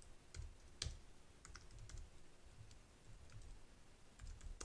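Faint computer keyboard typing: a dozen or so scattered, irregular keystrokes, a few more bunched together near the end.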